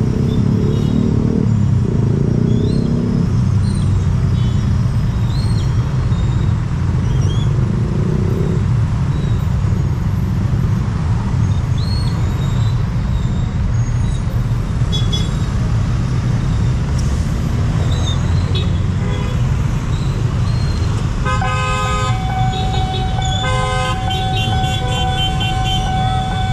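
Low steady rumble of an electric commuter train moving slowly, mixed with road traffic. Near the end a horn sounds a couple of short toots, then a long steady blast.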